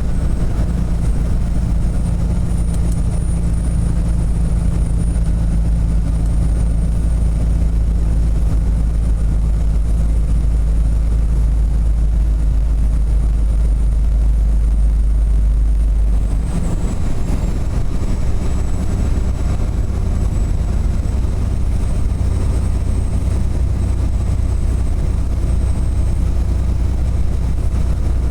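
Semi-truck under way, a loud steady low diesel drone with road noise. The engine note changes about halfway through and then holds steady again. A thin high whine runs above it.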